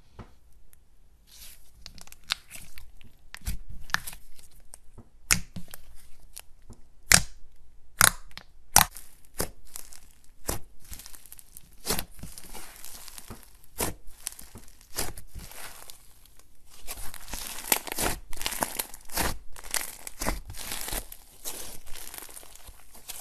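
Thick, fluffy slime being stretched, folded and squeezed by hand, tearing and popping with sharp irregular snaps. The popping turns into a dense crackle in the last third.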